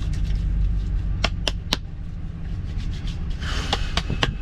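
Steady low rumble of a vehicle heard from inside the cab. A few sharp clicks come in a quick run of three about a second in and twice more near the end, with a short hiss shortly before the last clicks.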